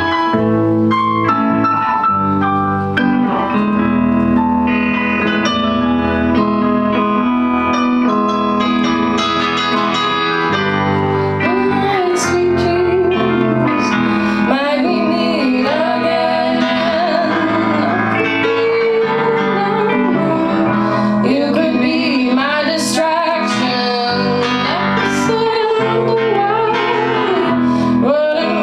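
A small band playing live: electric guitar and keyboard, with a woman's singing coming in about ten seconds in.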